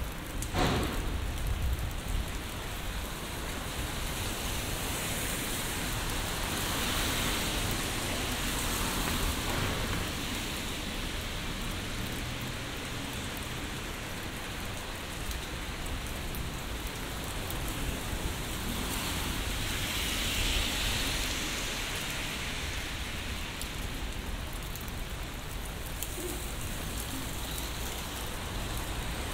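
Steady rain falling on an umbrella and wet pavement, its hiss swelling twice, about seven and twenty seconds in. There is a brief knock about half a second in.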